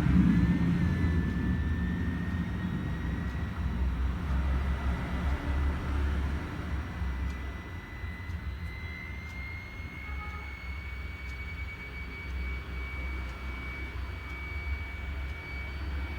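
Laptop cooling fan spinning up as the machine boots: a thin whine that climbs quickly in pitch in the first second and then keeps creeping slowly higher, over a steady low rumble.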